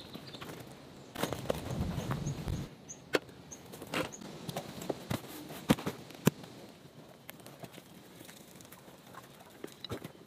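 Camping gear being handled and unpacked: fabric and bags rustling for a second or so, then scattered sharp clicks and knocks of buckles, clips and gear being set down. The loudest knocks come about six seconds in.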